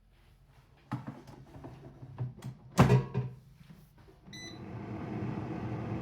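Kitchen handling sounds: a run of clicks and knocks with one loud knock about three seconds in. A short electronic beep follows near the end, and then a steady hum sets in.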